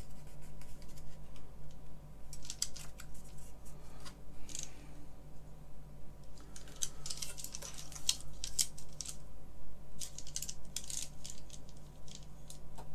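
Irregular clicks, taps and rustles of a stripped computer keyboard assembly and its circuit board being handled and turned over, in several clusters, over a low steady electrical hum.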